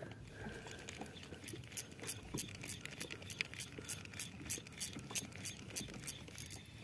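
Spinning reel ticking quickly and lightly as it is worked by hand, about five clicks a second, starting about a second and a half in and stopping near the end, over a low rumble of wind and water.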